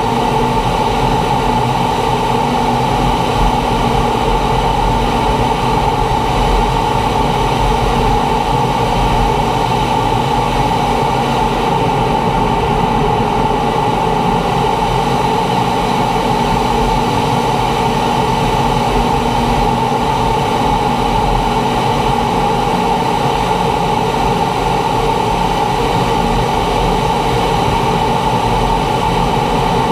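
Steady cockpit noise of a T-45 Goshawk in low-level flight: its single Rolls-Royce Adour turbofan running at a constant setting with a steady mid-pitched hum over an even rush of noise.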